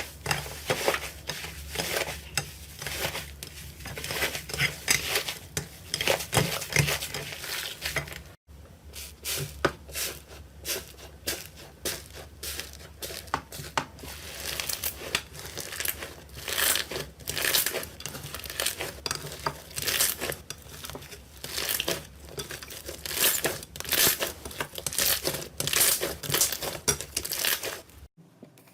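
Slime being squished and worked, giving dense, irregular crackling and popping clicks. The sound breaks off for a moment about eight seconds in, then carries on.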